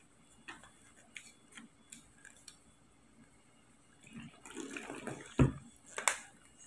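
Faint handling clicks, then about four seconds in a short pour of water splashing for about a second, followed by two sharp knocks.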